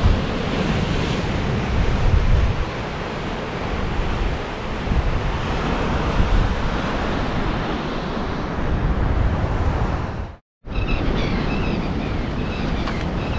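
Surf breaking and washing over granite boulders, with wind buffeting the microphone in a gusty low rumble. The sound cuts out for an instant about ten seconds in and then carries on.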